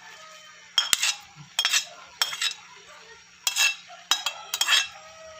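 Metal spatula scraping and knocking against a plate as shredded pechay is pushed off it into a wok: a run of about six sharp clinks and scrapes, unevenly spaced.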